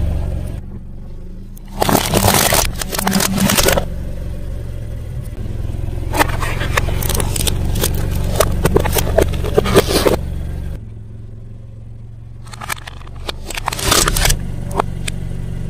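A car's tyre rolling slowly over small objects on concrete, crushing them with crackling, crunching bursts several times, over the low steady sound of the car's engine running.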